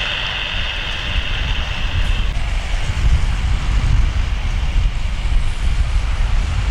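Steady low rumble of a jet airliner on final approach, mixed with wind on the microphone. A steady high hiss runs through the first two seconds or so and cuts off abruptly.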